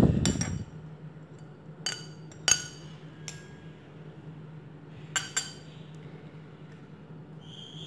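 A metal spoon clinking against a ceramic plate three times as chopped coriander is knocked off it, then two more clinks about five seconds in as the plate is set down. A low steady hum runs underneath.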